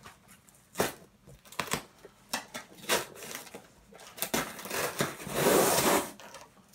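Shipping package being torn open by hand, without a cutter: a few short rustles and snaps about a second apart, then a longer, louder rip near the end.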